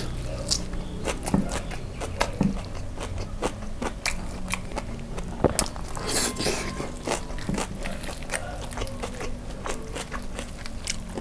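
Biting into and chewing crispy breaded fried chicken coated in kimchi sauce: a steady run of short crunches and mouth clicks, with a denser burst of crunching about six seconds in.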